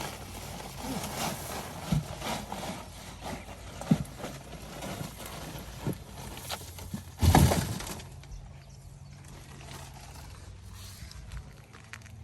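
Irregular knocks, scrapes and rustling of soil and ube tubers being handled while digging them out of a container, with one louder thud about seven seconds in; quieter after that.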